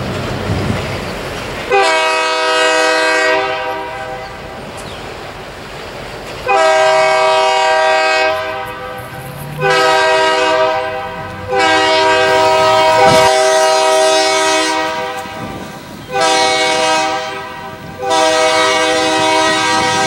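Diesel locomotive air horn sounding six separate blasts, the fourth the longest, with a low rumble of the slow-moving train underneath.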